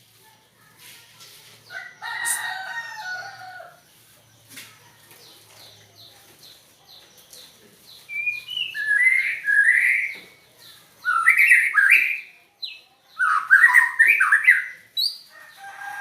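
White-rumped shama (murai batu) calling in unusual phrases. One call comes about two seconds in, then a run of quick faint ticks, then three loud phrases in the second half.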